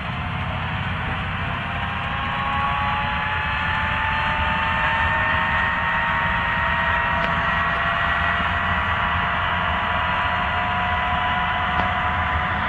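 John Deere 9420R tractor's 15-litre six-cylinder diesel running under load, a steady low rumble under a whine that rises slowly in pitch, getting a little louder over the first few seconds.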